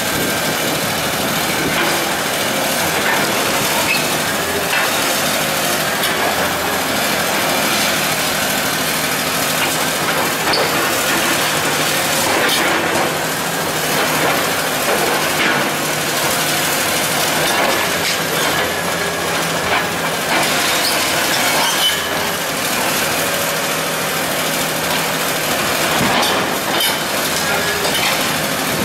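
Hydraulic excavator's diesel engine running under load while its demolition crusher jaws grab and break concrete, with irregular knocks and the clatter of concrete chunks and rubble.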